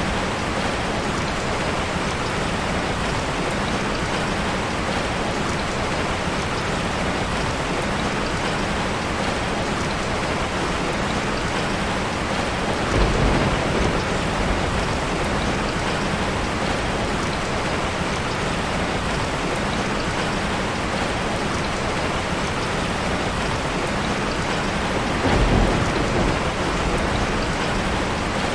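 Steady heavy rain falling on a surface, with two brief low rumbles of thunder, about halfway through and again near the end.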